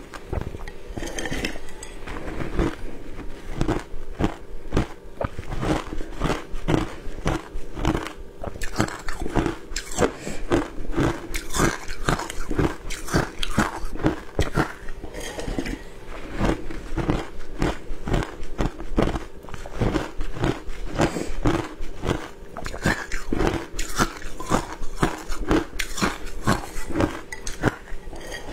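Matcha-flavoured crushed ice being bitten and chewed close to a clip-on microphone: a steady run of crunches, two or three a second.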